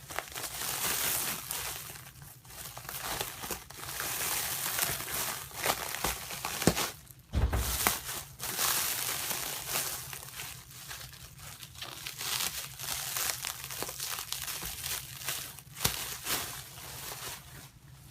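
Packing material crinkling, rustling and tearing as new BMX wheels are worked out of a shipping box. There are a few sharp knocks and a dull thump about seven seconds in.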